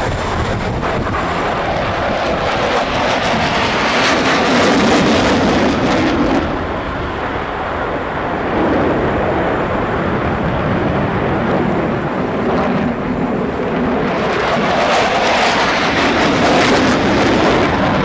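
F-16 fighter jets passing low overhead, their engine noise swelling and fading twice.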